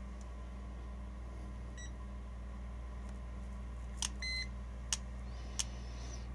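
Handheld digital multimeter being switched by its rotary dial: three sharp clicks about four, five and five and a half seconds in, with a short electronic beep from the meter right after the first click. A faint beep comes about two seconds in. A steady low hum lies underneath.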